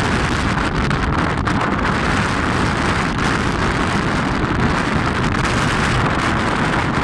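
Strong wind buffeting the microphone: a loud, steady rushing noise with a rumbling, gusting low end.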